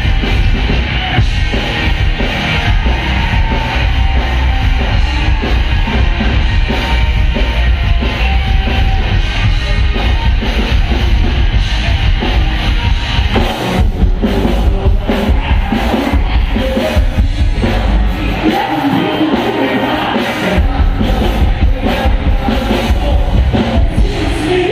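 Live rock band playing loud through a concert PA: electric guitars, bass, drum kit and singing. A little past two-thirds through, the low drums and bass drop away for about two seconds and the singing stands out, then the full band comes back in.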